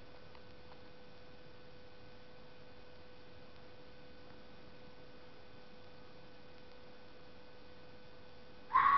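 A faint steady hiss with a thin steady hum, then near the end a sudden loud scream breaks in. The screamer is a night-calling animal that the uploader takes more likely for a red fox than a fisher.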